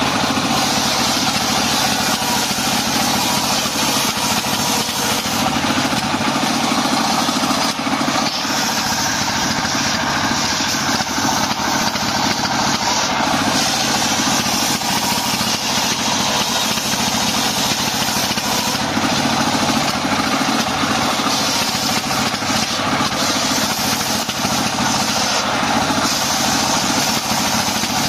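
Stationary single-cylinder diesel engine running steadily, driving a homemade table circular saw with its blade spinning.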